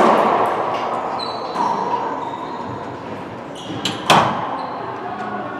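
Racquetball hits ringing out in a hard-walled racquetball court: a loud crack right at the start that echoes and fades slowly, then a second sharp crack about four seconds in.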